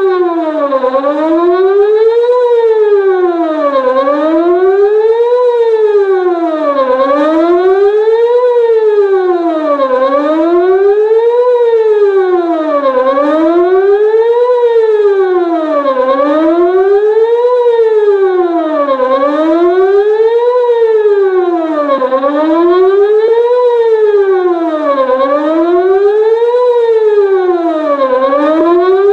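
Whelen WPS-2906 electronic outdoor warning siren sounding a wail during its monthly test. The pitch rises and falls evenly, about once every two seconds.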